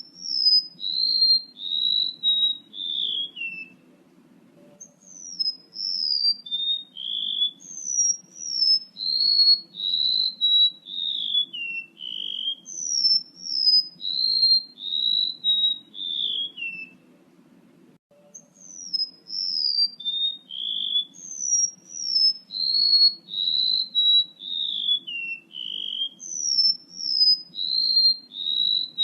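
Male rementuk laut calling, played as a bird-lure recording. Each call is a run of clear, high whistled notes, each slurring downward, the series stepping lower in pitch over several seconds. The runs repeat one after another, with a break of about a second after the first run and another a little past halfway.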